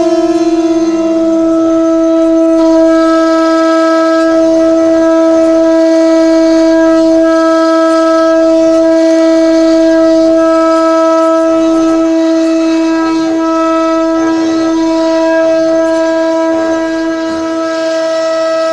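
CNC router spindle whining at a high, steady pitch while it engraves a door, with a changing cutting hiss as the bit works through the material.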